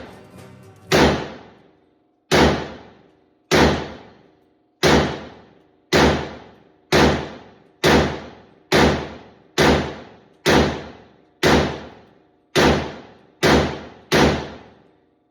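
A series of about fourteen loud, sharp booming hits, each with a ringing tail that dies away over about a second. They come roughly once a second and slightly faster toward the end.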